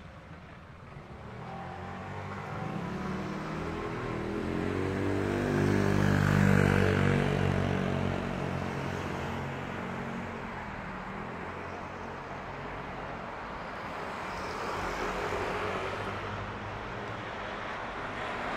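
A motor vehicle drives past close by over steady street noise, its engine hum growing to a peak about six and a half seconds in and then fading away. A quieter swell of traffic follows near the end.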